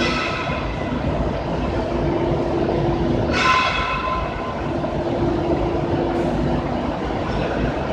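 Sawdust charcoal making machine running: a steady mechanical rumble with a hum that switches on and off about every two and a half seconds, and a brief high-pitched squeal about three and a half seconds in.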